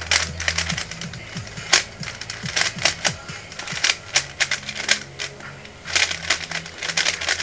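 A 3x3 Rubik's speed cube clicking and clacking as its layers are turned fast by hand, in quick runs of turns broken by short pauses.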